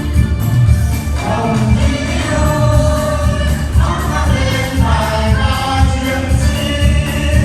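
Voices singing together over a loud backing track with a steady, heavy bass beat; the singing comes in about a second in.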